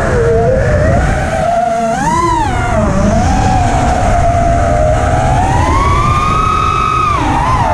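Armattan Rooster racing quad's brushless motors and propellers whining as they are throttled, the pitch surging up and back about two seconds in, then climbing slowly for a couple of seconds and dropping near the end. A steady low rumble of wind on the onboard microphone lies under it.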